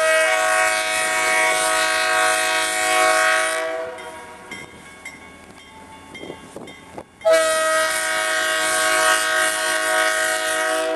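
Diesel locomotive's air horn sounding two long blasts of several tones at once, each about four seconds long, with the quieter running of the locomotive on the rails in the gap between them. The blasts are the opening long blasts of a warning for the road crossing ahead.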